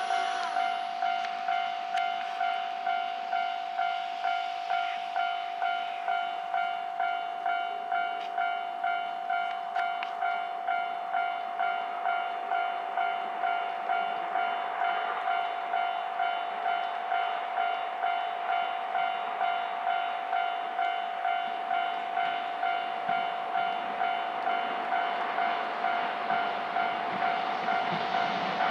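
Railway level-crossing warning bell ringing at an even pace, about one and a half dings a second, over the steady noise of a train passing.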